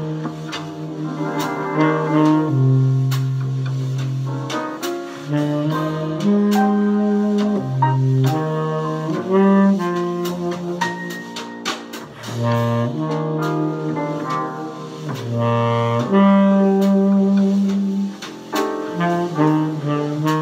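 Tenor saxophone playing a slow jazz ballad melody, long held low notes joined in phrases with short breaths between them.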